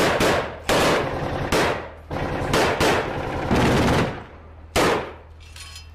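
Close gunfire: about seven loud shots at uneven intervals, each dying away briefly.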